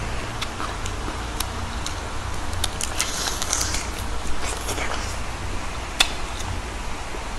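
Close-up eating sounds of biting and chewing a fried chicken drumstick: scattered crackly crunches of crisp skin and wet chewing, busiest about three to five seconds in, with one sharp click about six seconds in, over a steady low hum.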